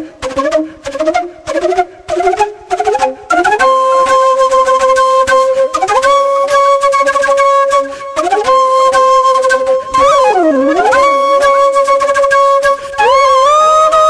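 Background music: a solo flute melody, quick short notes at first, then from about three and a half seconds in long held notes joined by slides in pitch, with one deep swoop down and back up near the three-quarter mark.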